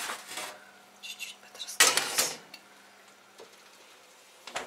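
Metal baking tray clattering as it is set down on a gas stove's grate about two seconds in, after a few lighter clinks of the tray being handled out of the oven.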